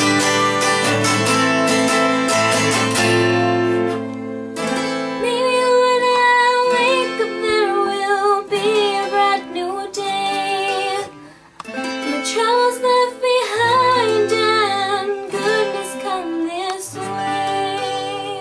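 Twelve-string acoustic guitar strummed, with a woman's voice singing over it from about five seconds in.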